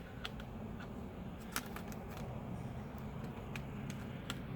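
A handful of light clicks and taps of a laptop battery and small parts being handled, spread irregularly over a low steady hum.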